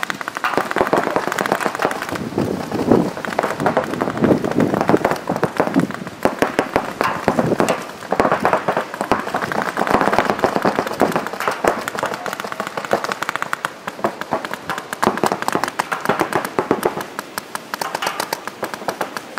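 Paintball markers firing: many sharp pops in quick strings, several a second, thickest in the second half.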